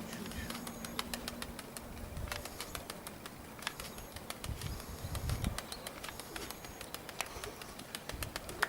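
Pigeons' wings flapping, with many sharp clicks and claps scattered through, over a low uneven rumble of wind on the microphone.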